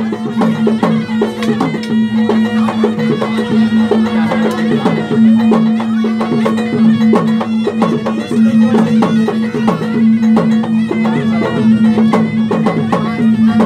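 Traditional Bugis-Makassar gendang music: two-headed barrel drums beaten in a fast, dense rhythm under a loud, reedy wind instrument that holds one steady note with a wavering melody above it.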